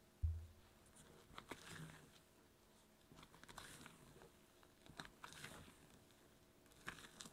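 Silicone spatula folding thick sponge-cake batter in a stainless steel bowl, scraping down to the bottom: soft wet squelches and scrapes every second and a half or so. A dull low thump just after the start is the loudest sound.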